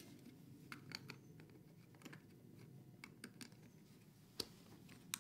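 Faint scattered clicks and taps of small plastic connectors being handled and snapped into place in wiring terminal blocks, with a couple of sharper clicks near the end.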